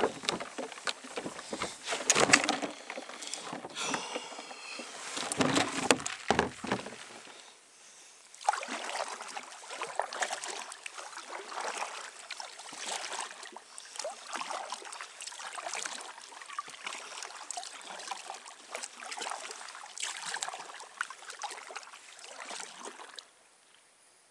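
Kayak paddling: paddle blades dipping and water splashing and dripping in an uneven rhythm. The sound cuts off suddenly near the end.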